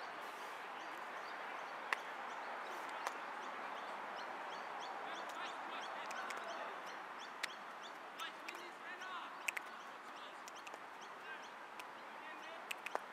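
Birds chirping and calling again and again over steady outdoor background noise, with a few sharp knocks scattered through.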